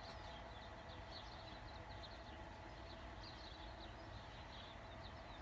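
Faint, quick high chirps in short runs, like a small bird's, over quiet room tone with a steady low hum.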